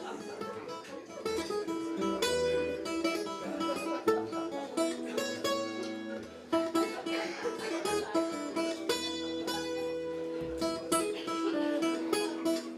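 Acoustic guitar playing an instrumental break, a steady run of picked and strummed notes.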